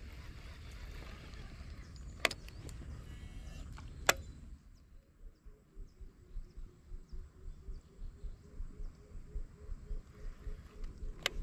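Two sharp clicks about two seconds apart over a steady rushing noise, then a fishing reel being wound in a steady rhythm, about two turns a second, as the lure is retrieved.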